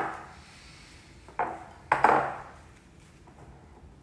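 A spoon clinking against a glass bowl three times while scooping whipped cream into a piping bag, each clink ringing briefly.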